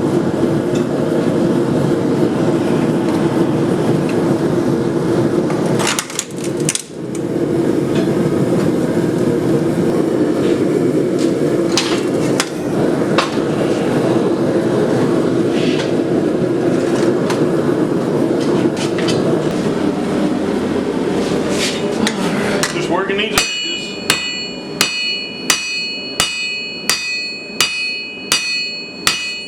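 Angle grinder with a worn flap disc running against a steel plate, stripping paint, briefly lifting off about six seconds in, then winding down near the end. Steady hammer blows on steel at an anvil follow, about two a second, each ringing.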